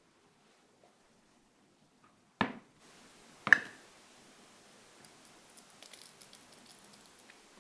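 Two sharp clinks of ceramic tableware set down, the second louder with a brief ring. Then the faint, crackly spluttering of ketchup squeezed from a plastic squeeze bottle into a small ceramic dish.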